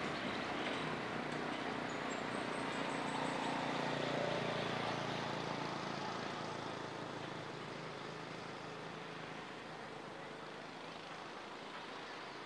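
A container truck's diesel engine running as the truck drives away up the road, swelling slightly about four seconds in and then fading steadily.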